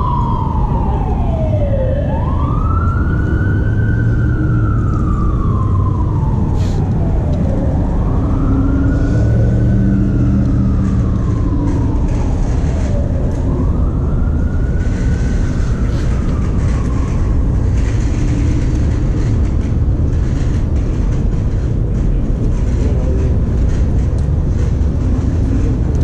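Emergency vehicle siren wailing, slowly rising and falling about every five to six seconds and fading out about two-thirds of the way through, over a steady low rumble of street noise.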